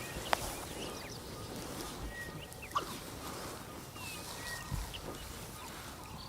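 Wild birds calling in the bush: many short chirps and whistles scattered through, with two sharp clicks, one just after the start and one near three seconds in.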